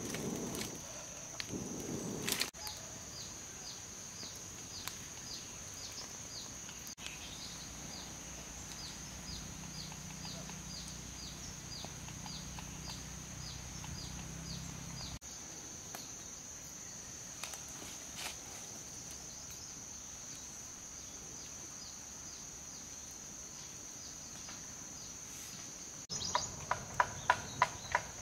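Steady high-pitched insect drone from crickets, with a run of short repeated chirps, at a moderate level. In the first couple of seconds there are low puffs of breath blown into a small fire. Near the end comes a quick series of sharp, loud taps.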